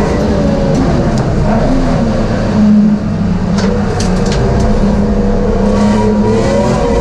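BMW M3 race car engine heard from inside the cabin, running hard at racing speed. The engine note shifts in pitch throughout. The level drops briefly about three seconds in, and a few sharp clicks follow as the car turns into the bend.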